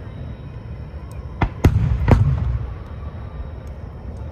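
Aerial fireworks exploding: a steady low rumble of distant bursts, with three sharp bangs in quick succession about one and a half to two seconds in.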